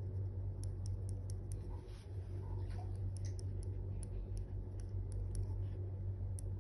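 Pedicure knife shaving callused skin off a toe, making small irregular scraping clicks, a few a second, over a steady low hum.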